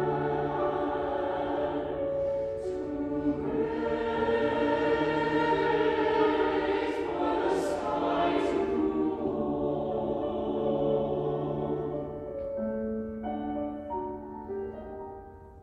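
Mixed SATB choir singing slow, sustained chords. The sound swells in the middle, then thins out and softens near the end as the low voices drop out.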